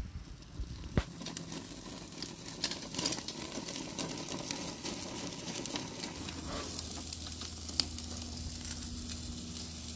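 Thick ribeye steak sizzling under an infrared grill's overhead burner, with scattered pops. A sharp click about a second in and a metal clink near the end, as the tongs pull the grate out.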